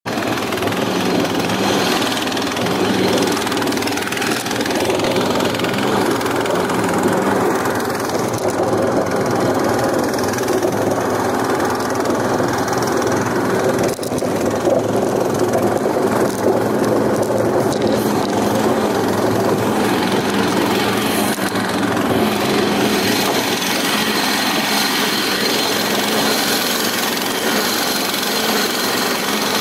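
Engine of an amphibious motorized tow unit (motobuksirovshik) running steadily and loudly as the machine drives through brush.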